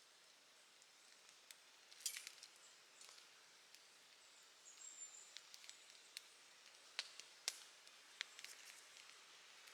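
Campfire burning quietly, with sparse sharp crackles and pops over a faint hiss. About five seconds in there is a brief thin high whistle.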